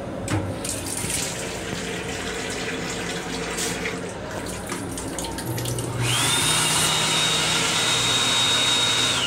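Water from the sensor faucet of an M7 railcar restroom sink running and splashing into the basin. About six seconds in, a motor starts up with a quickly rising, then steady, high whine and a louder rush.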